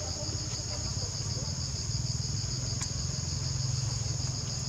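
Chorus of forest insects keeping up a steady, high-pitched, fast-pulsing chirr, with a low rumble underneath that swells in the middle.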